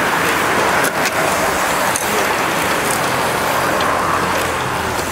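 A large pack of road-racing bicycles passing close by: tyres hissing on asphalt, with the ticking of many freewheel hubs as riders coast.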